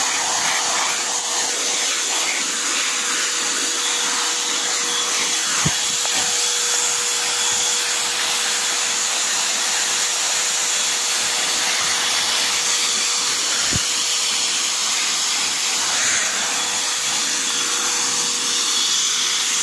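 Modified handheld vacuum cleaner running as a blower through a long flexible hose: a steady motor whine over a strong rush of air. Two brief knocks about 6 and 14 seconds in.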